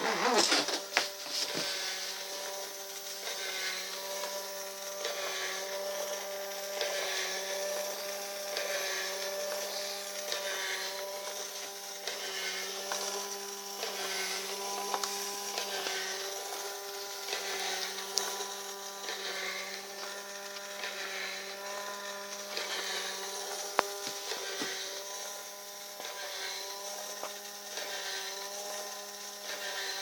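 Small electric gear motor of a motion-activated plastic owl bird scarer whirring as it flaps the wings: a steady whine that swells about once a second. There are two sharp clicks, one near the middle and one later on.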